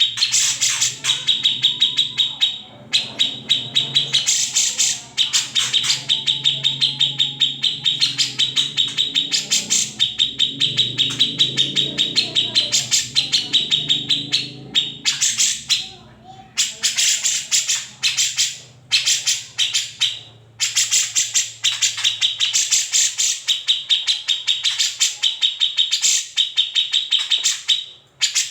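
Cucak jenggot (grey-cheeked bulbul) calling continuously in fast, harsh chattering strokes, many a second, in long runs broken by a few short pauses: its scratchy 'besetan' call, used as a tutor song for other songbirds.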